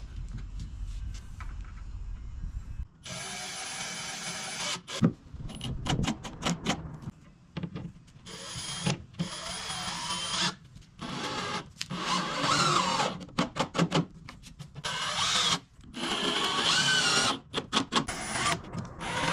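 Power drill running in repeated short bursts, its pitch rising and falling, as it drives fasteners into wooden boards. The first three seconds hold only a low hum before the drilling starts.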